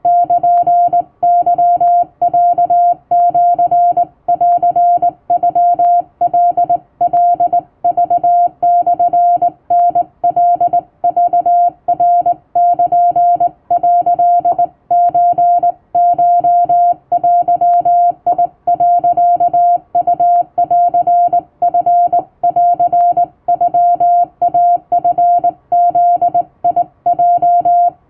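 Hand-keyed Japanese (wabun) Morse code: a single steady mid-pitched tone switched on and off in short dots and longer dashes, with brief pauses between characters, in a continuous practice transmission.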